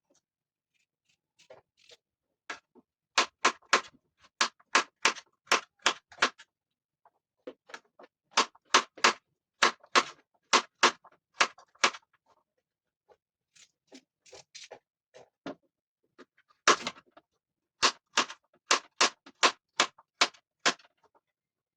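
Knife chopping on a cutting board: runs of sharp, even strokes about three a second, in several bursts with short pauses between.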